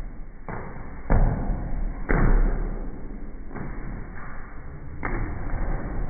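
A large inflated rubber balloon being batted about by hand, giving a series of about five sudden hits, the loudest about one and two seconds in.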